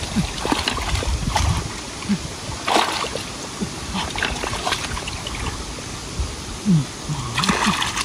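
Water splashing and sloshing in irregular bursts, as hands and bodies work in shallow water while hand-fishing for catfish.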